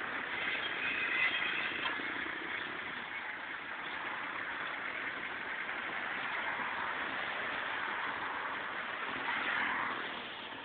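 A wrapping machine running with a steady mechanical noise, engine-like and unchanging, swelling slightly near the end.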